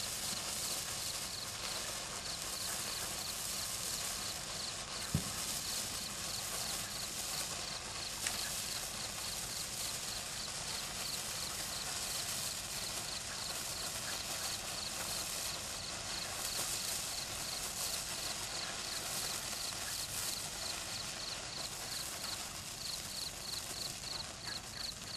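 A handheld neon sparkler burning with a steady fizzing crackle.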